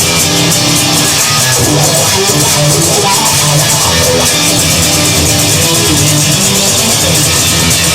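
Instrumental rock music: electric guitar over a steady drum beat, with no vocals.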